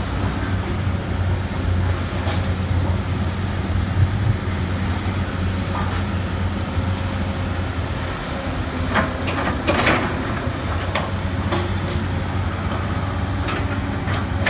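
Komatsu PC200 excavator's diesel engine running steadily under work, a continuous low drone. About nine to eleven seconds in, a few short metallic clanks and squeaks rise over it, with one more pair near the end.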